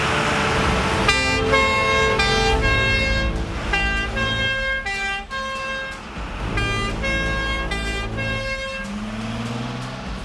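Fire engine's two-tone warning horn sounding its alternating high-low call, starting about a second in, the two pitches swapping roughly every half-second.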